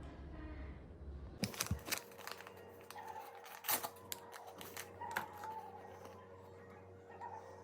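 Faint handling noises in a small room: scattered clicks and short rustling or crinkling sounds, with a light steady hum underneath.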